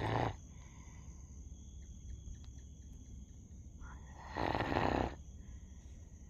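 A sleeping dog snoring: the tail of one snore at the very start, then one loud snoring breath about four seconds in that lasts about a second.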